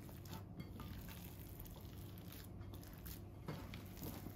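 Hands squishing and kneading raw chicken burger mince in a bowl: faint, irregular soft squelches over a low room hum.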